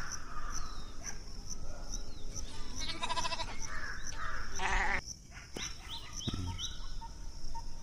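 An animal bleating twice, a quavering call about three seconds in and another just before five seconds. Under it runs a high, even chirping about four times a second.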